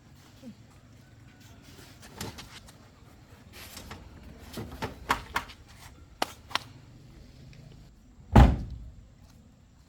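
A few scattered light clicks and knocks, then one heavy slam about eight seconds in, as a car door is shut.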